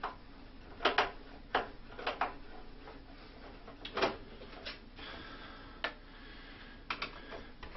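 Irregular sharp clicks and knocks of screws being taken out of the back of an APC UPS unit, tools and parts clicking against the unit as it is worked on.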